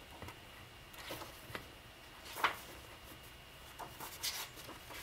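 Book pages rustling as a hardback is opened and leafed through: several short, soft paper rustles, the loudest about two and a half seconds in.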